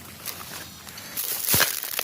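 Rustling and crunching of leaves and twigs as someone moves through brush, louder in the second half with a sharp crackle about one and a half seconds in.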